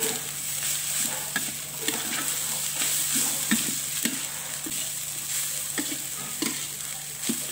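Fried rice sizzling in a metal wok as a spatula stirs and tosses it, with frequent short scrapes and knocks of the spatula against the pan over a steady frying hiss.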